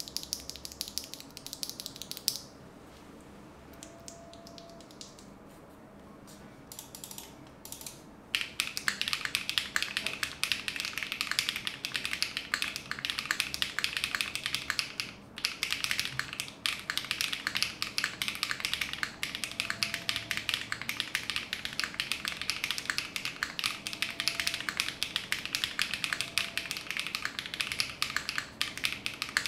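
A single factory-lubed HMX Swift linear switch clicking as it is pressed by hand, then, about eight seconds in, fast continuous typing on a QK60 60% mechanical keyboard. The keyboard has HMX Swift linear switches, GMK keycaps and an FR4 plate, and the keystrokes form a dense, even clatter with one brief pause partway through.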